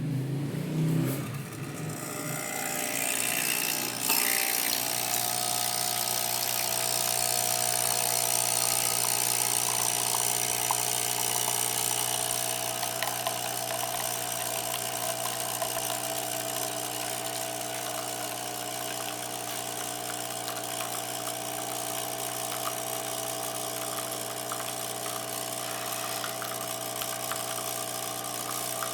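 Nespresso Essenza Mini coffee machine brewing: a click about four seconds in, then the steady buzzing hum of its vibration pump pushing water through the capsule.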